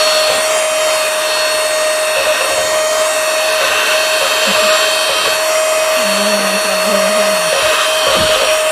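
Unbranded 120-watt cordless handheld vacuum cleaner running: a steady motor whine over rushing air.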